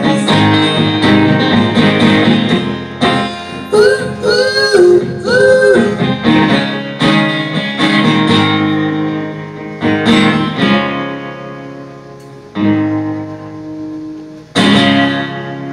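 Acoustic guitar strumming in an instrumental break of a folk song, with a voice singing a short wordless, wavering line about four to six seconds in. The playing thins out near the end before a fresh strum.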